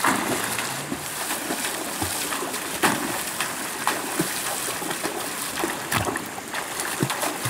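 Water splashing in a river: several sharp splashes over the steady rush of the flowing current.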